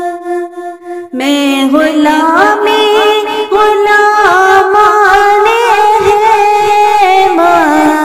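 Wordless melodic singing of a naat alaap, a male voice drawn out on vowels. It comes in about a second in, climbs in steps with small ornamented glides between notes, then falls back to a held note near the end.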